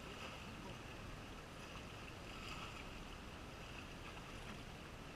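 Faint, steady seashore background: light wind on the microphone and a calm sea.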